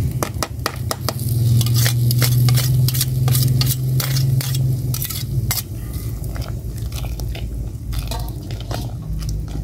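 Metal slotted spoon and ladle clinking and scraping against a metal cooking pot as fried shallots and garlic are tipped into simmering spinach soup and stirred in, with many quick knocks. A low steady hum runs under the first half and fades about five seconds in.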